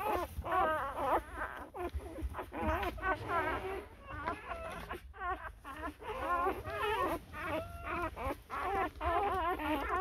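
Dogs whimpering and whining during a whelping: many short, high, wavering cries one after another, with a brief pause around the middle.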